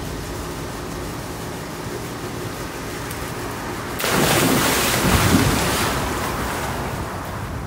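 A big splash of swimming-pool water about four seconds in, loud and lasting a couple of seconds, over a steady hiss of background noise.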